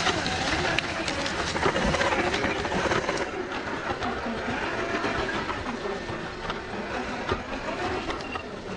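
Traxxas TRX-4 RC crawler's electric motor and geared drivetrain whining as it crawls slowly, its tyres crunching and crackling over dry leaves, twigs and dirt. The crunching is busiest in the first three seconds.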